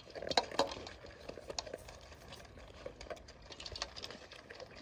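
Dog eating from a stainless steel bowl, its muzzle and the kibble clicking and clinking against the metal in irregular little knocks, the sharpest about half a second in.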